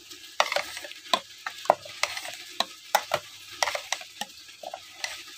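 Metal ladle stirring thick buttermilk-and-rice porridge (maheri) in a metal pot, with irregular clinks and scrapes against the pot a few times a second.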